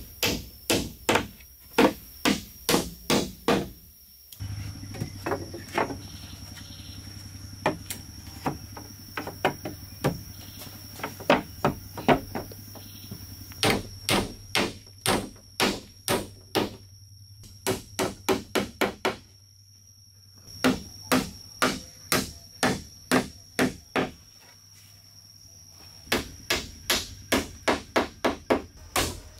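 Hammer nailing wooden planks: runs of sharp strikes, about two or three a second, with short pauses between the runs.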